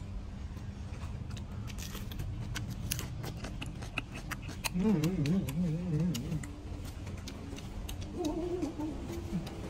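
Close-up mouth sounds of a man chewing crunchy raw vegetables dipped in chili sauce, with many sharp crisp clicks. About five seconds in he hums a long wavering 'mmm', and a shorter hum comes near the end.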